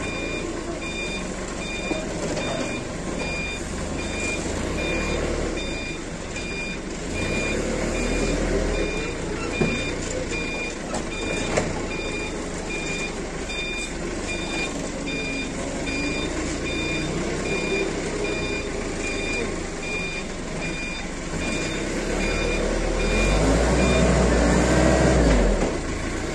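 Forklift's warning beeper sounding a steady series of short, evenly spaced beeps over its running engine. The beeping stops near the end while the engine grows louder.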